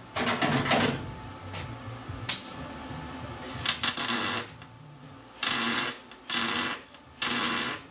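MIG welder laying short stitch welds on car-body steel: about five separate crackling bursts, each under a second, with brief pauses between as each stitch is made.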